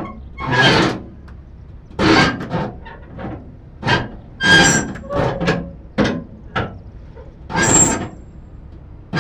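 Flatbed trailer cargo straps being tightened at the side winches: a series of short metallic clanks and ratcheting bursts, roughly one a second.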